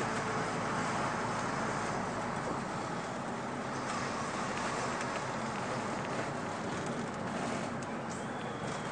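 Diesel engine of a 2002 MAN 12.223 bus running steadily under way, with road and tyre noise, heard from the driver's cab.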